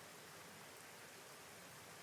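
Faint, steady rain hiss with no separate drops or thunder standing out.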